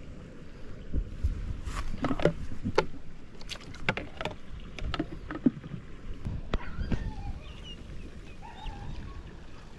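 A plastic bucket and its lid being handled: a run of sharp knocks and clicks over a low wind rumble on the microphone. The knocks stop about seven seconds in, leaving faint chirping over the rumble.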